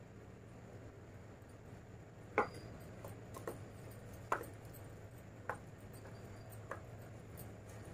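Fingers clicking against a stainless steel plate as rice and chicken curry are mixed by hand: about five separate short clicks, the first, about two and a half seconds in, the loudest, over a low steady hum.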